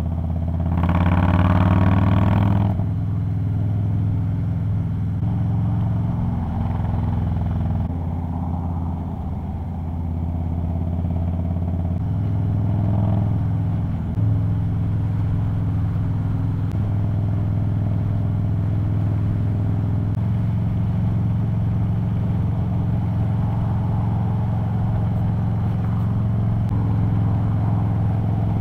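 Harley-Davidson Dyna Low Rider S V-twin engine running at speed as the bike rides along the freeway. About a second in the engine note rises and grows louder as it accelerates for a couple of seconds, then it settles into a steady cruise with small changes in pitch as the throttle changes.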